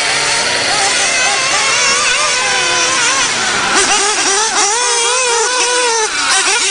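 Several radio-controlled model cars' small engines revving up and down, their overlapping high-pitched whines rising and falling continuously as they race.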